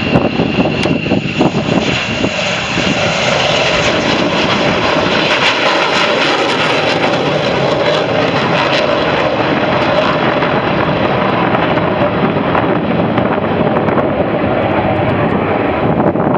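F-15 fighter jet's twin turbofan engines passing low, a loud, steady jet noise that fills the whole stretch, with a high whine in the first few seconds that fades.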